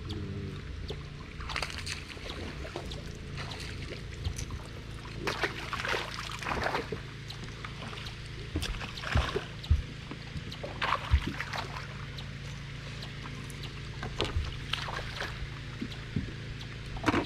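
A hooked bass splashing at the water's surface in several irregular bursts as it is reeled to the boat, over a steady low hum from the boat's motor.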